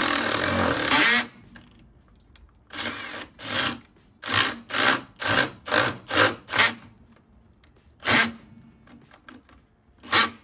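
Power drill boring a hole through metal, set to plain drill mode rather than hammer. It runs steadily for about the first second, then stops, and is fed through in a string of about ten short trigger bursts.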